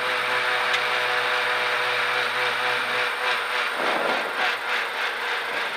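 Ford Escort MkII rally car's engine running steadily at low revs, heard from inside the cabin. From about three seconds in, rubbing and knocking noise on the microphone as the in-car camera is handled.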